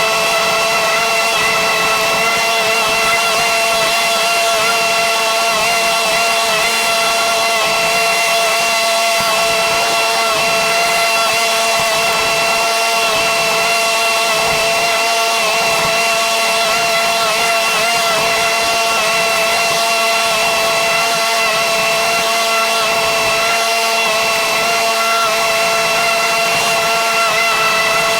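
Lawn mower's petrol engine running steadily at a constant speed, its pitch holding unchanged.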